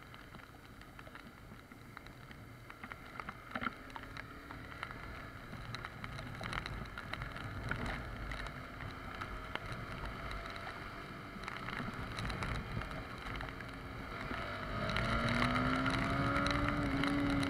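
Honda CBR250R's single-cylinder engine on its stock exhaust, running while the bike is ridden, quiet at first. About three-quarters of the way in it rises in pitch and gets louder as the bike accelerates. Wind rush and scattered ticks run underneath.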